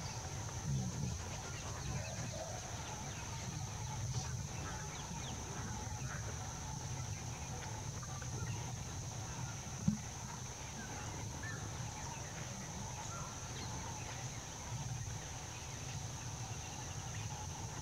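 Open-air wildlife ambience: scattered faint bird chirps and calls over a steady high hiss and a low steady rumble, with one short click about ten seconds in.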